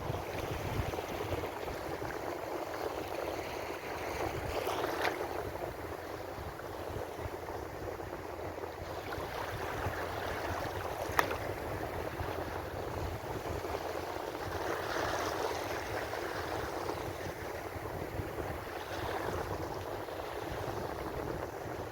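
Ocean waves washing in on the shore as a steady wash, swelling as a wave breaks about 5 seconds in, again near 15 seconds and once more near 19 seconds. A single sharp click is heard about 11 seconds in.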